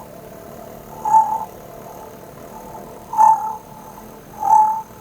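Beatboxed sonar searching sound made with the voice: a steady rolled-R vibration with three short high-pitched pings, about one, three and four and a half seconds in.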